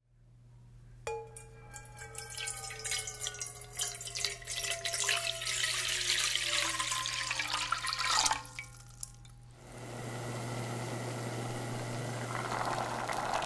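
Water pouring and splashing into a pot, with a ringing tone that slowly falls in pitch; the pour stops about eight seconds in. Then a steady hiss from the water in the pot heating toward a boil, over a low hum.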